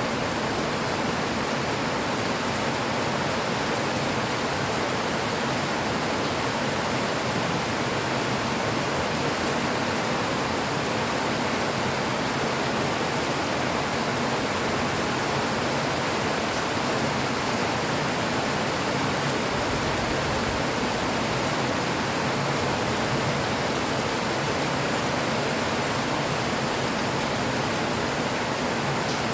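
Rain falling steadily, an even, unbroken hiss with no breaks or separate drops standing out.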